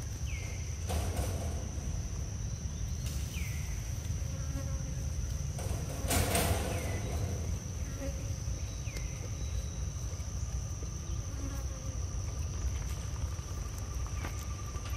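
Insects droning steadily at one high pitch over a low outdoor rumble. A few short downward chirps come through now and then, and there is a brief rustle about six seconds in.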